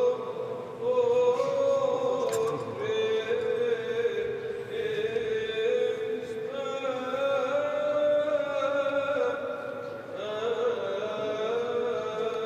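Clergy chanting an Orthodox liturgical chant: slow, long held notes that step up and down in small moves.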